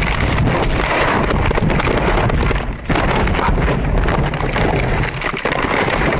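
Crash noise inside a car clipped by a truck: loud, continuous rushing and scraping packed with sharp clatters, dipping briefly just under three seconds in.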